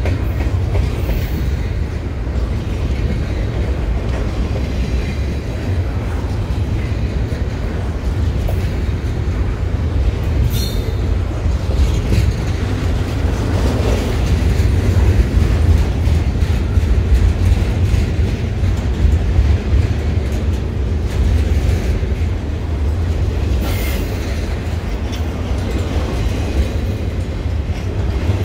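Double-stack container cars of a long freight train rolling past with a steady heavy rumble and clatter of steel wheels on the rails. The rumble is a little louder midway through, and there are two brief high squeals from the wheels, about ten seconds in and near the end.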